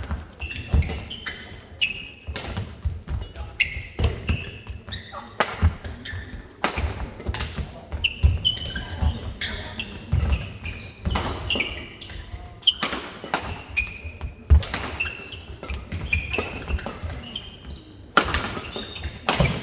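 Badminton rally: sharp cracks of rackets striking the shuttlecock every second or so, with short squeaks of shoes on the court floor and thuds of footwork between the shots.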